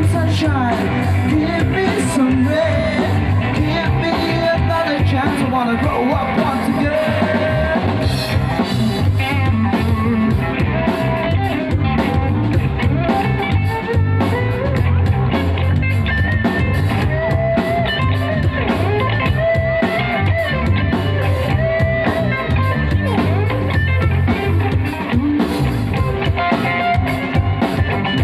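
Loud music with singing, guitar and drums over a heavy steady bass beat.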